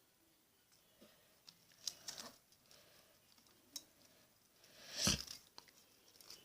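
Faint handling noises of fingers working the strip of a VHS tape and Scotch tape while lining up the ends for a splice: a few light clicks and rustles, with a brief louder rustle about five seconds in.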